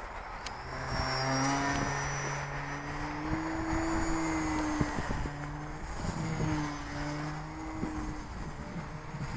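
Small electric RC plane's motor and propeller buzzing in flight from about a second in, the pitch wavering a little as it flies, with wind buffeting the microphone.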